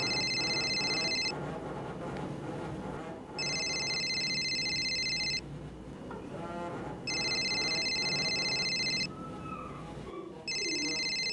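Mobile phone ringing with a trilling electronic ring. It rings in even bursts of about two seconds with about a second and a half between them, four times, over a low background murmur.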